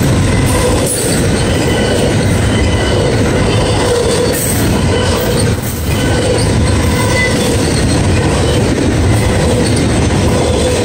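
Double-stack intermodal freight train's well cars rolling past close by: a steady, loud rumble and clatter of steel wheels on rail, with faint squealing tones that come and go.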